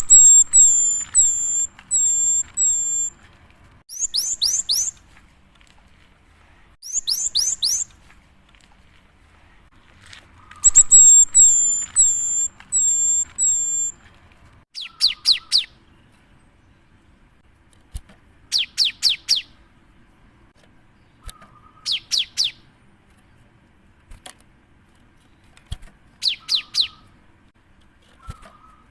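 Cinereous tit (gelatik batu) singing in high, whistled phrases. Runs of repeated hooked notes, about two a second, alternate with quick groups of three or four sharply falling notes, with short pauses between phrases.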